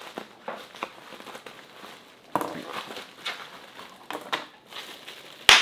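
Large-bubble plastic bubble wrap crinkling and rustling as it is pulled out of a cardboard box, with irregular crackles. Near the end comes one sharp snap of a big bubble popping.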